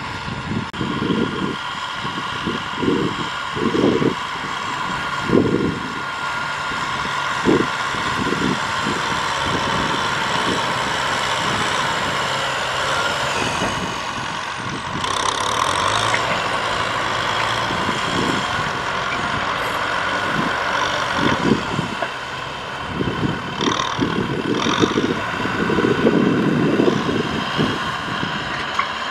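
Kubota M6040SU farm tractors' diesel engines running steadily under load as they drag levelling blades through loose field soil. Irregular low buffeting comes and goes throughout and makes the loudest moments.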